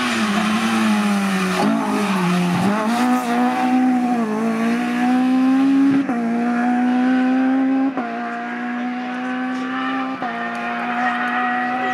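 Rally car engine at full throttle passing close, then pulling away while changing up through the gears: the pitch climbs and drops sharply at each shift, about six, eight and ten seconds in.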